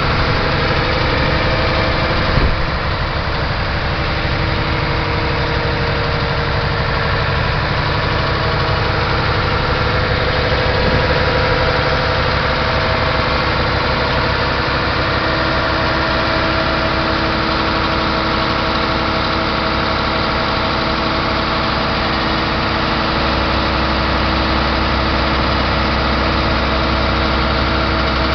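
Mercedes-Benz Actros 3236 truck's diesel engine idling steadily, with one brief knock about two seconds in.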